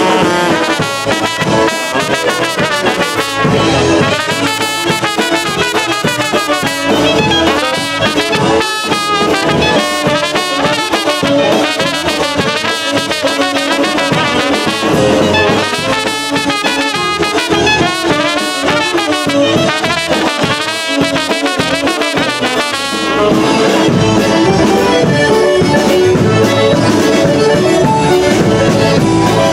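Live polka band playing, with a horn section of trumpet, clarinet and saxophone carrying the melody over a steady polka beat. About 23 seconds in, the full band comes in fuller and slightly louder, accordion and keyboard included.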